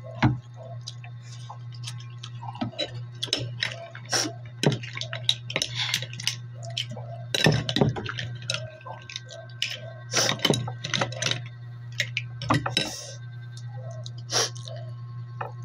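Close-up eating sounds: mussel shells and a spoon clinking and scraping against a plastic plate and a serving bowl, with mouth noises from eating, heard as irregular sharp clicks over a steady low hum.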